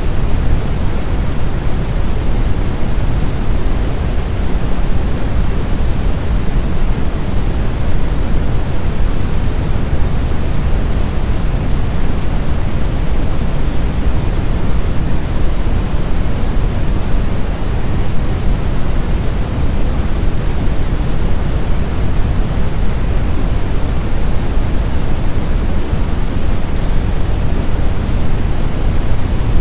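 Deep brown noise, multi-layered and smooth: a steady, deep rumbling hiss, strongest in the bass and unchanging throughout.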